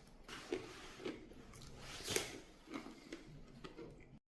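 Someone chewing food close to the microphone: faint, irregular soft crunches, the loudest a little past two seconds in.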